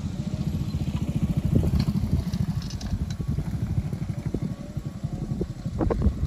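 Low engine rumble of a loaded sugarcane truck labouring along a muddy dirt track, with a motorcycle coming up close near the end.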